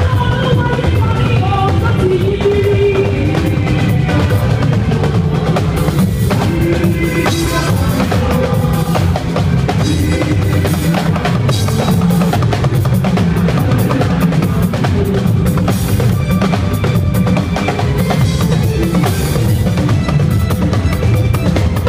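Music driven by a drum kit, with bass drum and snare keeping a steady beat under other pitched parts.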